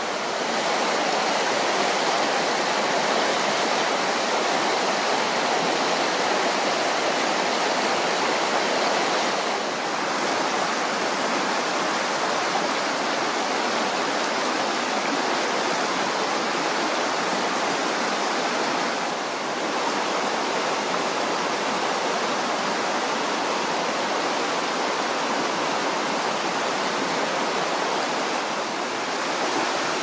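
A shallow river rushing steadily over rocks and small rapids, a constant full roar of water. The level dips briefly three times, about every ten seconds.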